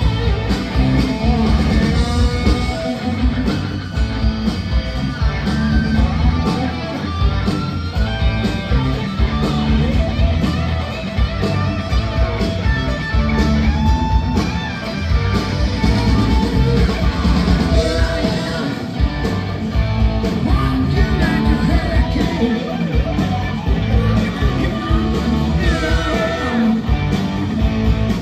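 Live rock band playing loud, with electric guitars, bass and drums under a lead singer's voice.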